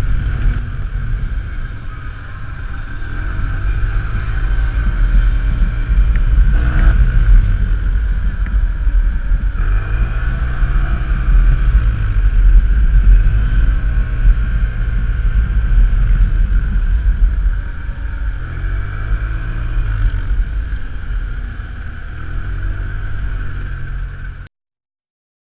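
Yamaha TMAX maxi-scooter's parallel-twin engine on the move, its pitch rising and falling as it speeds up and slows, heard from an onboard camera under heavy wind rumble on the microphone. Quieter stretches come a couple of seconds in and again from about three-quarters of the way through.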